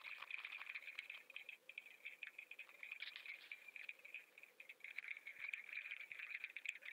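Faint crackling and rattling of water splashing around a lure-mounted action camera, heard muffled through its waterproof housing while a hooked mahi-mahi thrashes at the surface.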